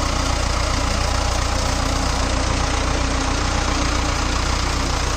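Mahindra Arjun tractor's diesel engine running steadily while the tractor moves slowly through a flooded paddy field.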